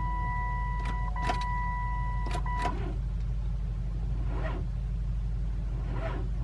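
A Dodge Intrepid's dashboard warning chime sounds as the ignition key is cycled off and back on. It is a steady electronic tone held in long stretches with short breaks, and it stops about two and a half seconds in. A steady low hum and a few light clicks run under it.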